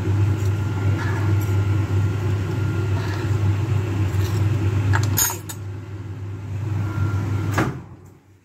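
A steady low machine hum runs until it drops away near the end. A few sharp clinks of a metal spoon and knife against a plate come over it, the loudest about five seconds in.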